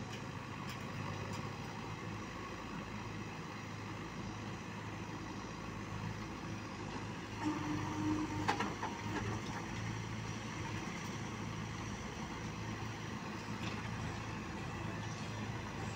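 JCB 3DX Eco Xpert backhoe loaders' diesel engines running steadily as they dig soil with their rear backhoe buckets. Around eight seconds in there is a brief higher-pitched tone and a single sharp knock.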